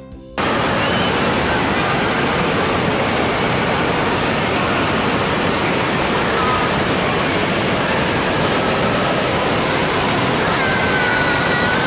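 Background music cuts off about half a second in. A loud, steady rush of water follows, as from an indoor waterpark, with faint distant shouts.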